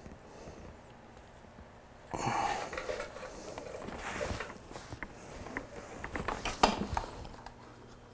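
Metal tool scraping and clicking against a motorcycle's gear-shift rod and linkage as the loosened rod is turned to lower the shift lever. It starts about two seconds in with a run of rattling and scraping, then a few sharp clicks, the loudest about two-thirds of the way through.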